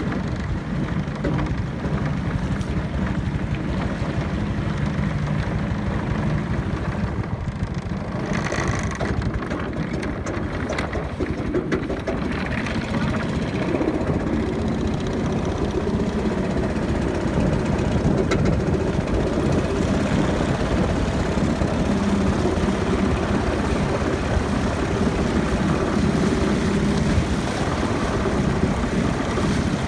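Boat engine running steadily, a continuous low drone.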